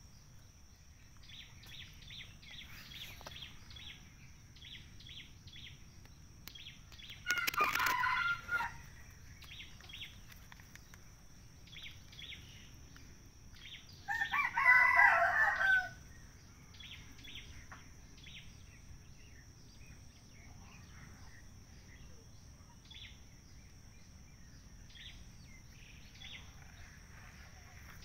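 A rooster crowing twice, about 7 seconds in and again about 14 seconds in, each crow lasting about a second and a half.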